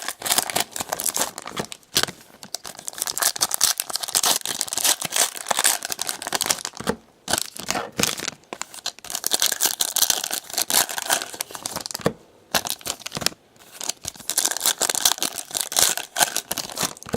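Plastic wrapping of a trading card box and packs being torn open and crinkled by hand, a continuous crackling rustle with a few brief pauses.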